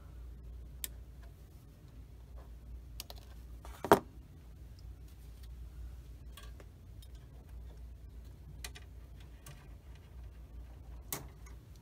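Sprue cutters taking small plastic parts off a model kit's sprue, with parts and tools handled on the mat: scattered light clicks, and one sharp snap about four seconds in, over a low steady hum.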